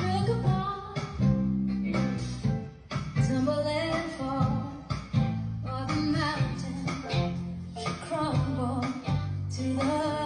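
A song playing: a singing voice over guitar and a steady bass line.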